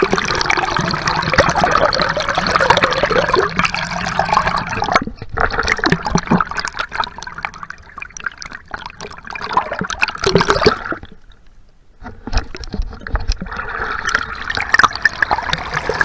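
Water churning and bubbling around an action camera held under the water. It drops away briefly about eleven seconds in, then picks up again.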